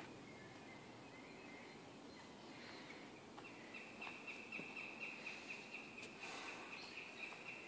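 Faint outdoor quiet; a little over three seconds in, a small bird starts a long, even trill on one high pitch, about five notes a second, lasting about four seconds.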